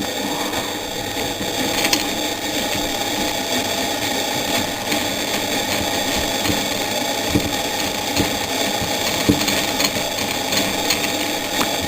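A screwdriver working a size 10 Torx screw out of a car radio's front fascia panel: a steady motor-like hum with a few faint clicks in the second half.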